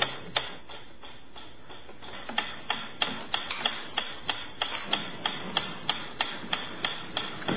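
Mechanical pendulum metronome ticking steadily, about three ticks a second, with a lull of about two seconds near the start.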